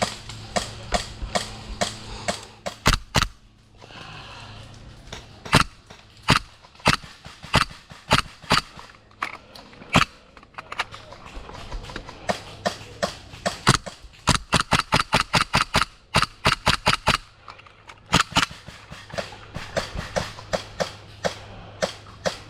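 Airsoft guns firing: a string of sharp pops, some single shots spaced out and a rapid run of shots about two-thirds of the way through.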